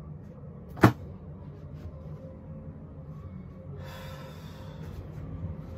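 A single sharp knock, like a hard object bumped or set down, a little under a second in. Later comes about a second of soft rustling hiss, over a steady low hum.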